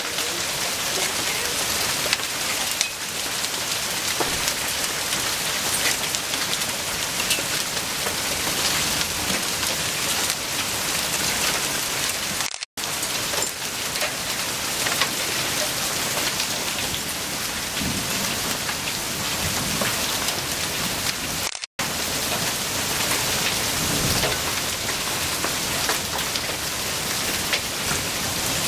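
Hailstorm: hailstones and rain pelting down in a dense, steady patter, with many small sharp ticks of stones striking. The sound breaks off for a split second twice.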